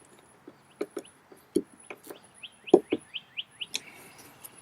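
Scattered clicks and knocks of hand tools and bolt hardware being handled, the loudest a little before the three-second mark. A bird chirps a quick run of about seven short, falling calls around the middle.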